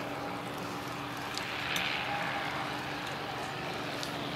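The Packard Merlin V12 engine of a P-51D Mustang making a steady, fairly faint drone as the fighter approaches low, over a hiss of open-air background noise.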